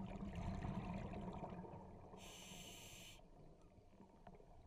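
Faint sound of a scuba diver breathing through a regulator underwater: a low bubbling rumble of exhaled air, then a short hiss of inhalation about two seconds in.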